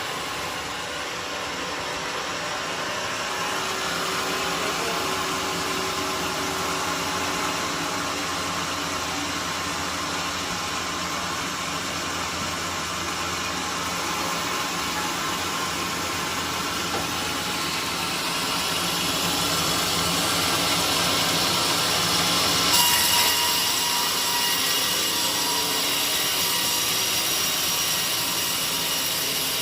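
Sawmill saw running steadily while sawing a teak log. About two-thirds of the way in the sound brightens and a steady whine sets in, as the cut bites harder.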